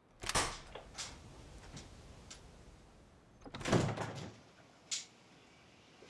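A wooden door being worked: a few sharp latch and handle clicks, then a heavier thud a little past halfway as it swings shut, and one more sharp click near the end.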